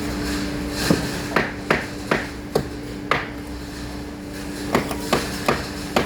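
A hammer striking the concrete form again and again, six quick blows and then four more, to settle the loose wet concrete so it sets without honeycombs. A steady machine hum runs underneath.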